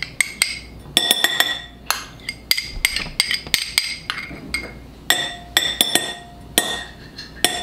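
Metal spoon scraping and tapping inside a small glass dish, scooping out minced garlic in oil: an irregular run of quick, ringing clinks, several a second.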